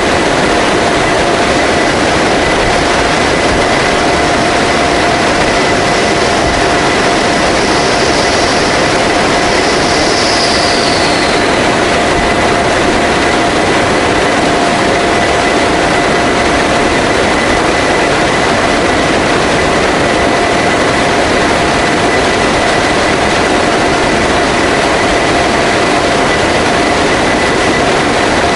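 Steady roar of rushing air and engines on an Antonov An-12's four-turboprop transport in flight, heard from its open rear cargo ramp, with two constant humming tones running through it.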